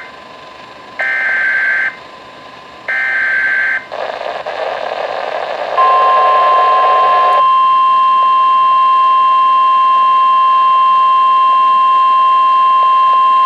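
NOAA Weather Radio emergency alert: two short screeching SAME digital header bursts about a second apart, a couple of seconds of radio hiss, then the steady 1050 Hz warning alert tone starting about six seconds in and holding. The alert tone signals that a warning, here a severe thunderstorm warning, is about to be read.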